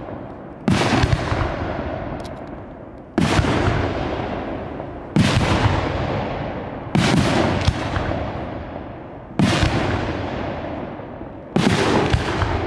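Professional category F4 aerial firework shells bursting: six heavy bangs about two seconds apart, two of them followed closely by a second bang. Each bang trails off in a long rolling echo.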